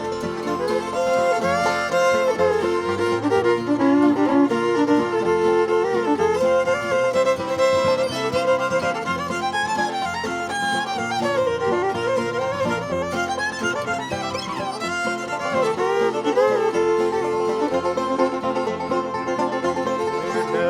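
Bluegrass band's instrumental break between verses, a fiddle playing the lead with sliding notes over strummed and picked string-band backing.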